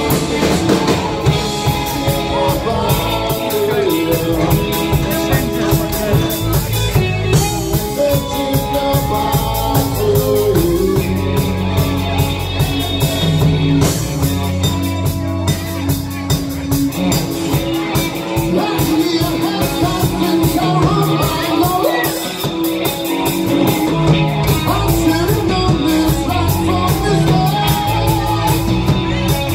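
Live rock band playing: a woman singing into a microphone over electric guitar, keyboards and a drum kit.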